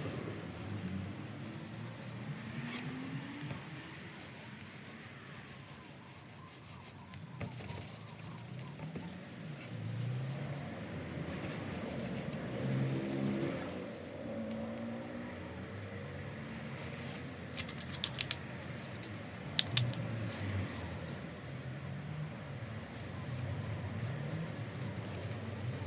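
Small foam paint roller rubbing and scraping faintly over a caravan's aluminium side panel, under a low background hum whose pitch wanders. A few sharp clicks come near the end.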